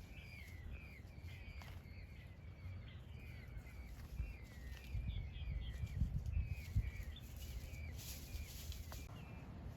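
Peachicks peeping: a steady run of short, high chirps, several a second, overlapping from more than one bird. A low rumble swells under them around the middle.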